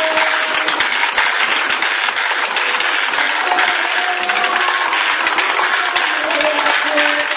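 Bank of electrical contactors clacking rapidly and continuously as motor-driven drum sequencers switch light circuits on and off: a dense, even clatter of clicks like applause. Faint music plays underneath.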